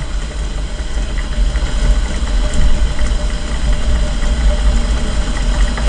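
Low, steady rumble with a faint hiss from a lidded pot of beef seaweed soup (miyeok-guk) boiling hard on high heat.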